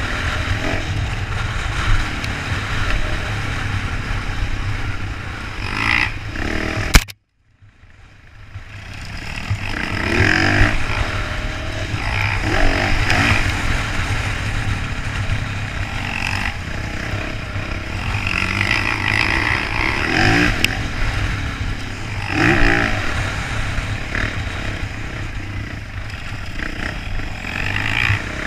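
Dirt bike engine revving up and down as the bike is ridden hard, with heavy wind rumble on the helmet-mounted microphone. About seven seconds in a sharp knock is followed by the sound cutting out for about a second, then fading back in.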